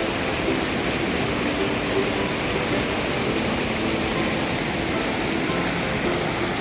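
Steady rush of a valley stream's flowing water, with faint short tones coming and going over it.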